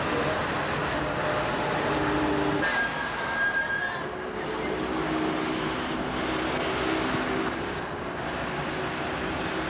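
City street traffic noise: a steady wash of passing cars and engines, with faint pitched engine hum and a short high tone about three seconds in.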